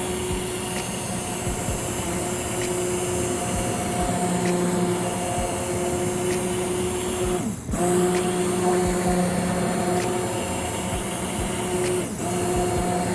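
Immersion blender motor running steadily as it blends a pot of soup. It cuts out for a moment about seven and a half seconds in, then comes back up, and dips again briefly near the end.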